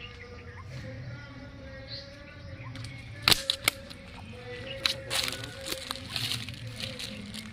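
A faint steady hum, then from about three seconds in several sharp clicks and knocks followed by irregular rustling handling noise.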